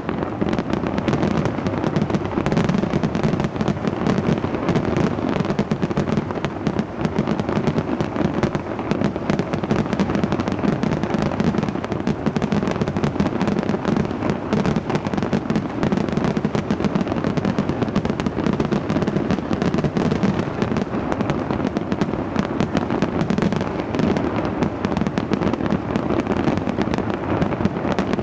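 Fireworks display going off without a break: a dense, continuous crackle of overlapping bangs and pops.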